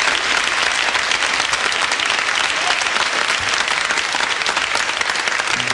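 Large audience applauding, a dense, steady patter of many hands, at the close of a live song recording.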